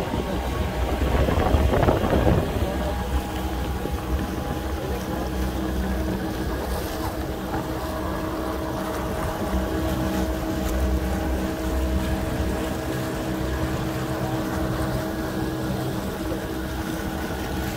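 Outboard motor of a small inflatable boat running steadily while the boat cruises across the lake, with a gust of wind on the microphone about two seconds in.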